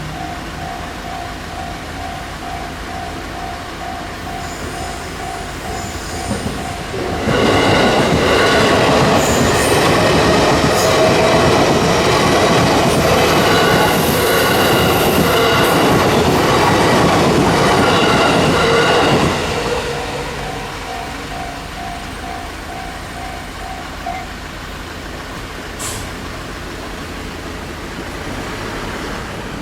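A level-crossing alarm rings a steady ding-ding of about two strokes a second. An electric commuter train then passes over the crossing for about twelve seconds: a loud rush of wheels on rail with a high squeal over it. The alarm rings on for a few seconds after the train and then stops.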